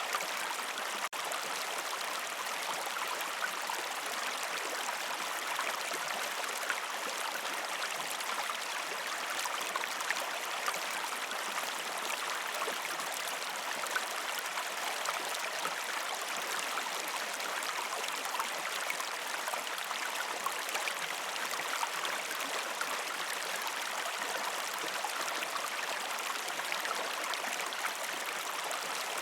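River stream water flowing steadily over rocks, a constant rushing with small splashes and gurgles throughout.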